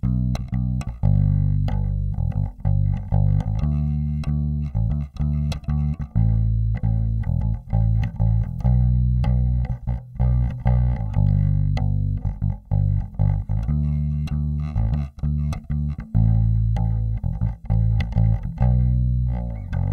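Warwick Rockbass Corvette Basic short-scale four-string electric bass played fingerstyle, a continuous run of plucked notes and riffs. Both pickups are blended evenly and the EQ sits flat at centre, giving the bass's full combined tone.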